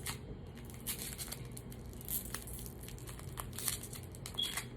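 Plastic lollipop wrapper crinkling and tearing as it is pulled off, a string of short irregular crackles.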